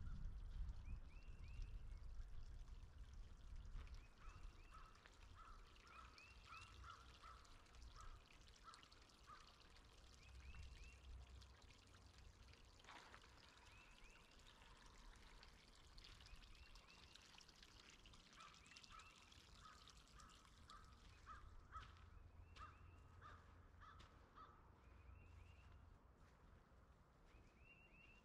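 Faint bird calls: short chirps and quick runs of repeated notes, coming again and again, over a low rumble.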